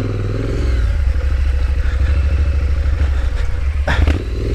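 Triumph Street Scrambler's 900 cc parallel-twin engine running under throttle on a rough dirt trail, heard from on the bike, with the revs rising and falling. A sharp clatter sounds about four seconds in.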